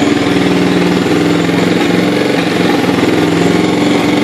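Kawasaki Bayou 300 ATV's single-cylinder four-stroke engine running steadily just after starting, freshly rebuilt with new rings and a replaced valve.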